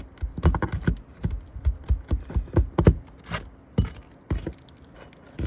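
Hands and a metal tool working at asphalt roof shingles: a quick, irregular run of knocks, scrapes and small metallic clinks, thinning out near the end.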